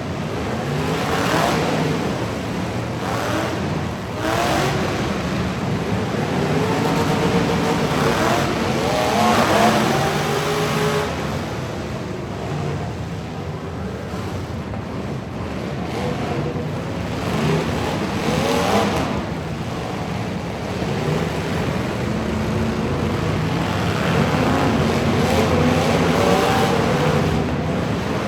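Truck engines revving and accelerating hard, their pitch climbing and dropping in repeated pulls, with several strong rising sweeps between about 8 and 10 seconds in and again near the end.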